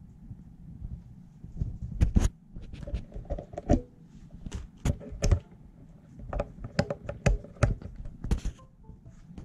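A run of irregular clicks and knocks on a laptop keyboard and its plastic case, mixed with handling noise from the camera held right against the keys.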